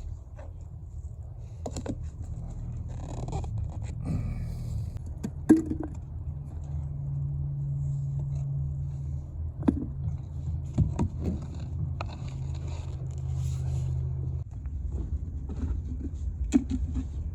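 Mini excavator's diesel engine running steadily. Between about seven and fourteen seconds in it settles into a steadier, higher hum, as under hydraulic load. Several sharp metallic clanks and scrapes come through, the loudest about five seconds in.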